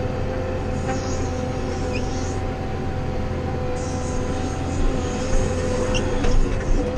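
Wheel loader's diesel engine running steadily under load as it drives, heard from inside the cab, with a low rumble and a steady whine. A few knocks and rattles near the end as it rolls over rough ground.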